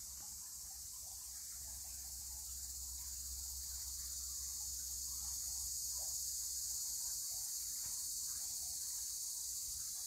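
Steady, high-pitched chorus of insects in late-summer woods, growing slowly louder, over a faint low rumble.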